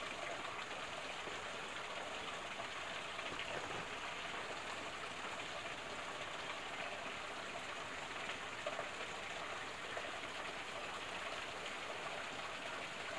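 Small stream's water splashing and trickling steadily.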